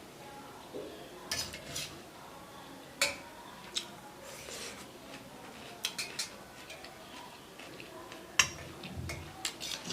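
Cutlery clinking and scraping against a plate of fried rice with noodles, in scattered sharp clicks; the loudest come about three seconds in and about eight and a half seconds in.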